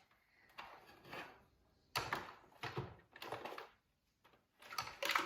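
Plastic robot-vacuum body being handled: turned over and its cover opened, giving three rustling, knocking scrapes of hard plastic, the sharpest just after two seconds.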